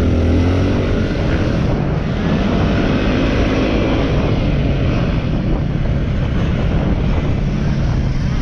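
Yamaha WR250R's single-cylinder four-stroke engine running under varying throttle, revs rising and falling, with wind noise on the microphone.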